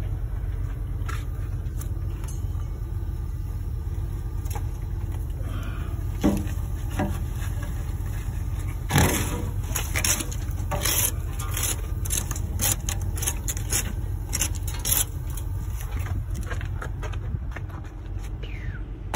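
A log truck's diesel engine idling steadily; about halfway through, a run of scrapes and clatters as loose bark and wood chunks are swept by hand off the trailer's steel deck plate.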